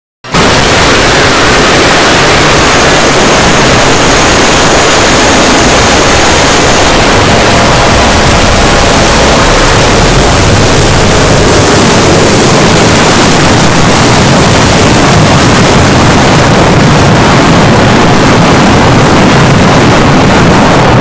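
Jumpscare sound effect: an extremely loud, heavily distorted noise blast that bursts in out of silence, holds at full volume with a faint high whine in its first few seconds, and cuts off suddenly about 21 seconds later.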